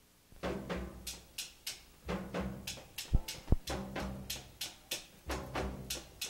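Jazz big band's rhythm section playing: a ride cymbal struck in a steady swing pattern about three times a second over low double bass notes, with two loud low drum hits near the middle. It starts after a brief dropout in the recording.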